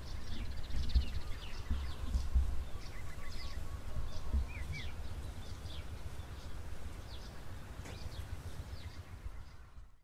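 Sparrows chirping in many short, quick, falling chirps, over a low rumble that is strongest in the first few seconds. The sound fades out at the very end.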